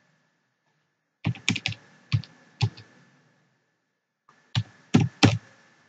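Computer keyboard keystrokes in two short bursts of typing, about six or seven quick strokes and then, after a pause, about four more.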